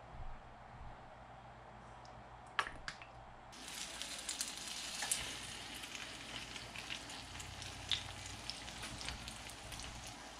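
Egg-soaked bread frying in a generous layer of oil in a nonstick pan: sizzling and crackling with many small pops, starting suddenly a few seconds in after a couple of sharp clicks.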